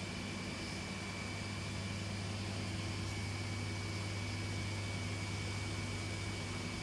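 Steady low mechanical hum with a faint, thin high-pitched whine above it, unchanging throughout.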